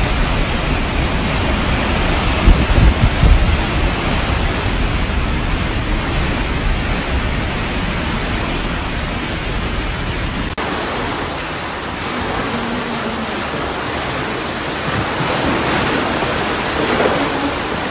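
Hurricane wind and rain blowing hard, with heavy gusts buffeting the microphone. About ten seconds in it cuts abruptly to a steady rushing noise of storm floodwater surging.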